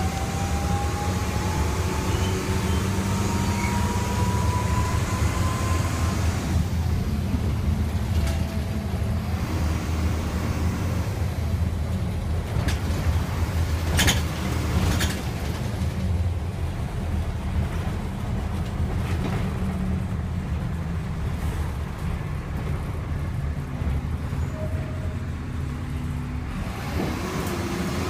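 Bus engine and road noise heard inside the passenger cabin: a steady low rumble, with a faint whine rising in pitch over the first six seconds. Two sharp knocks or rattles sound about 14 and 15 seconds in.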